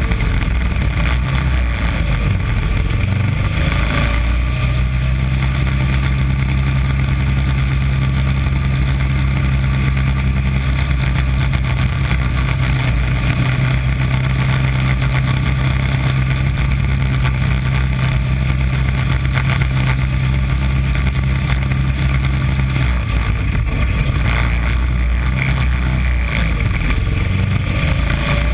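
Engine of a small single-seat Mini Corvette race car, heard from onboard, running hard at a steady pitch, with loud wind and road noise. The engine note shifts in the first few seconds and again a few seconds before the end.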